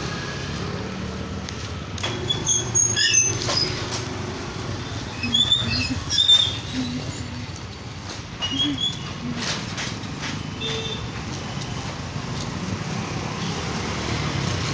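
Street traffic: motorcycle and light-truck engines running and passing along a narrow market road, over a steady hum, with short high chirps heard a few times.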